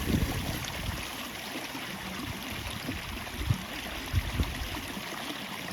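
Water running steadily where an inflow drops into an irrigation pond, with a few brief low bumps on the microphone.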